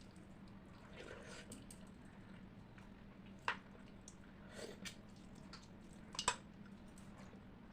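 Close-miked eating of rice and curry: soft, wet chewing and mouth sounds with a few sharp smacks.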